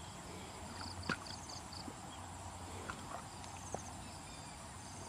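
Hands digging and scraping in wet mud at a burrow, with a few scattered soft knocks, over a faint steady hum. A short run of quick high chirps comes about a second in.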